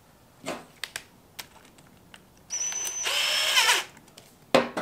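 A cordless DeWalt impact driver runs briefly on the nut of a stainless exhaust band clamp, taking the clamp apart: a high whine for about half a second, then louder for under a second, winding down. Light handling clicks come before it, and a louder knock just before the end.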